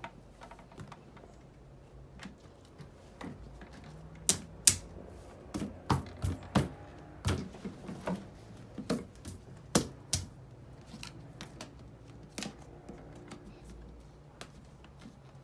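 An irregular run of sharp clicks and knocks from a black plastic mesh shelf unit's tiers and tubular legs being handled and fitted together by hand. They are most frequent in the middle stretch and thin out toward the end.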